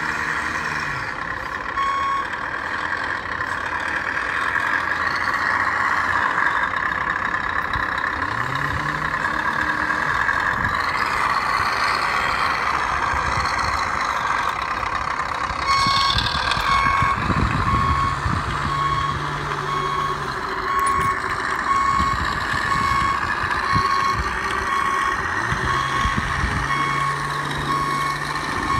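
Radio-controlled truck's electronic sound module: a simulated diesel engine running and revving up a few times, with reversing beeps repeating steadily through the second half.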